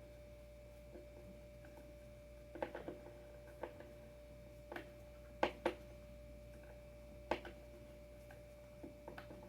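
Scattered light clicks and taps of small hardware, bolts and adapter parts being handled and set down, about a dozen in all with the loudest a pair of knocks around the middle. A faint steady hum sits underneath.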